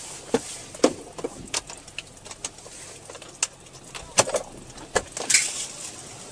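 Scattered raindrops tapping on a car's windshield, heard from inside the cabin over a faint low engine and road hum, with a short swish about five seconds in.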